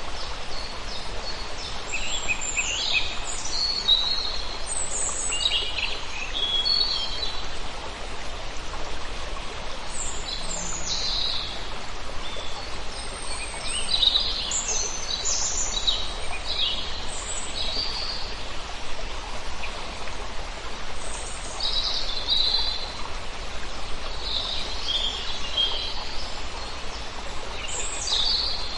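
Birds chirping and singing in short, repeated phrases, several calls overlapping at times, over a steady, even rushing hiss.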